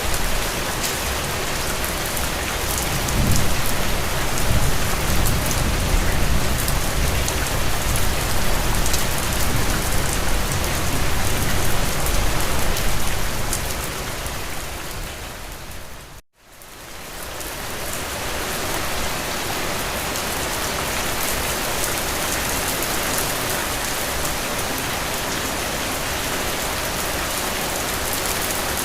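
Steady rain falling as an even hiss, with a long low rumble from about three seconds in that dies away by about thirteen seconds. Past halfway the rain fades out to a moment of silence and then fades back in.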